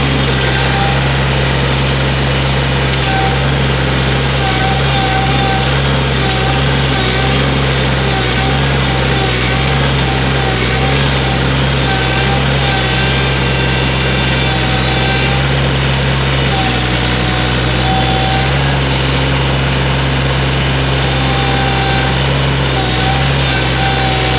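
Excavator's diesel engine running steadily under load, with a higher tone that comes and goes every few seconds.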